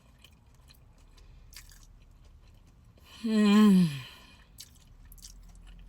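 Soft mouth sounds of a person chewing a deep-fried crab cake, with one drawn-out falling moan of enjoyment from a woman about three seconds in.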